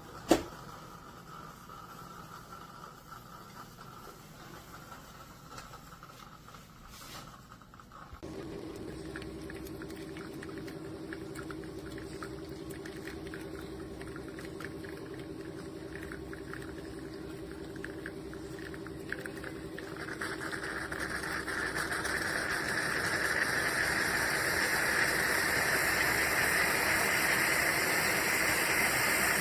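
Single click, then from about eight seconds a steady low hum with hiss, typical of a stove burner heating a small stainless steel moka pot; over the last third a hiss grows steadily louder as the pot heats toward brewing.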